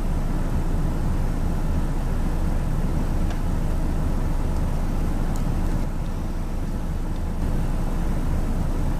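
Steady low rumble, heaviest in the deep bass, with a couple of faint ticks about three and five seconds in.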